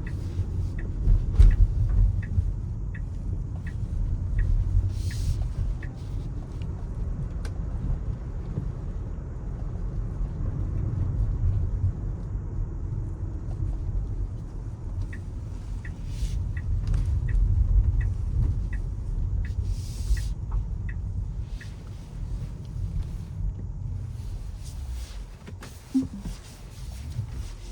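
Tesla electric car driving on wet city streets: a steady low road and tyre rumble, with a run of regular ticking at about two a second near the start and another around the middle.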